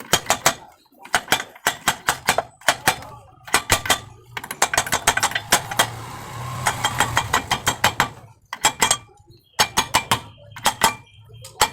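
Rapid bursts of sharp metallic clicking, about ten clicks a second, from work on a 1 hp electric motor. A low steady hum runs under the clicking through the middle and later part.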